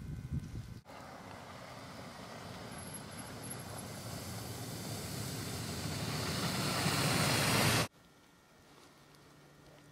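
A 4x4 approaching along a snow- and slush-covered road, its tyre and engine noise growing steadily louder for about seven seconds before cutting off suddenly.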